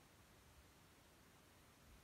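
Near silence: a faint, steady background hiss.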